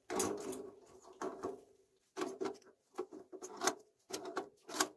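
Pliers clicking and scraping against a brass plumbing fitting as it is gripped and turned on a replacement boiler relief valve: a quick, irregular run of sharp metallic clicks, some with a short ring.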